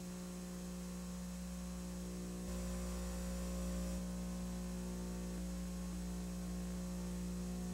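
Steady electrical mains hum with a faint hiss behind it.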